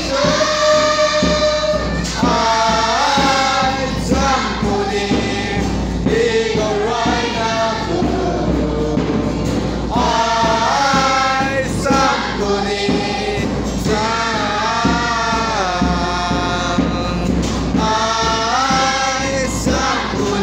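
A group of children and adults singing a gospel song together, phrase after phrase, over a steady musical backing.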